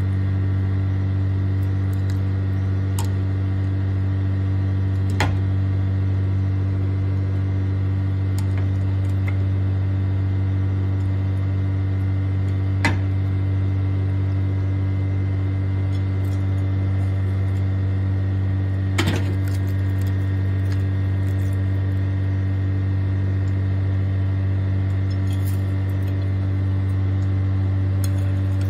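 A steady low electrical hum runs throughout without change. A few single light knocks of food and cookware fall over it, and near the end comes a quick scatter of soft clicks as sliced onion is tipped from a metal bowl into the pot.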